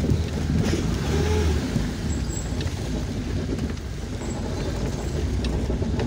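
Car engine and road noise heard from inside the cabin while driving along a street: a steady low rumble.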